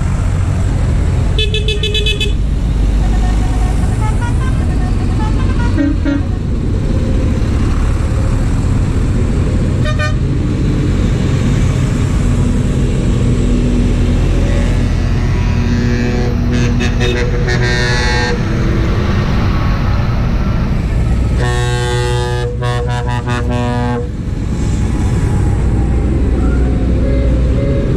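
A convoy of diesel farm tractors rumbles past at road speed. Horns toot several times over the engines, loudest for about two seconds near the end.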